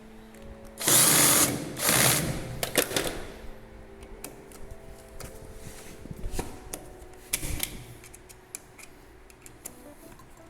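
Cordless drill-driver running in two short bursts about one and two seconds in as it drives a faceplate screw into a power socket, followed by small clicks and handling of the screw and socket.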